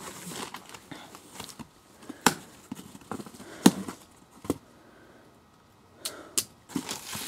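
A long cardboard shipping box being handled and shifted on the ground: a few scattered sharp knocks and scrapes against the cardboard, the loudest about two and a half and three and a half seconds in.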